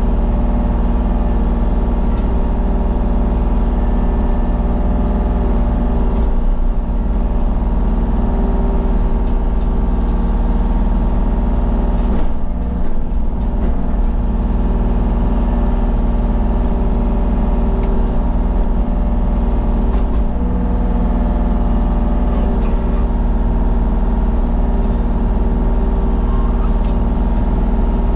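Diesel engine of a small excavator running steadily at an even speed, loud and close.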